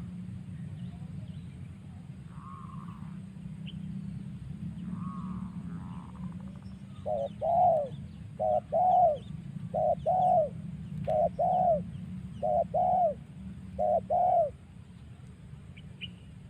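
A dove cooing: after a couple of softer, fainter calls, it repeats a two-part coo six times, a short note followed by a longer arching one, each about a second and a half apart. A steady low rumble runs underneath.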